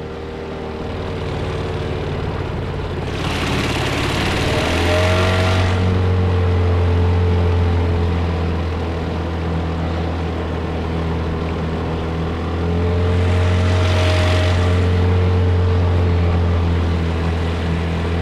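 Gladiator 9.8 two-stroke outboard motor running a boat along during its break-in, a steady hum that grows louder about five seconds in and stays so. A hissing rush rises and fades twice over the engine.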